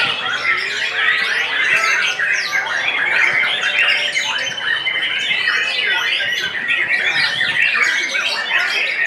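Many caged white-rumped shamas (murai batu) singing at once, a dense, unbroken tangle of quick overlapping whistles, chirps and trills.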